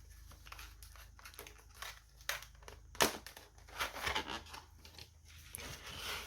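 Plastic packaging crinkling and rustling as it is handled and opened, with irregular clicks and a few sharper crackles about two, three and four seconds in.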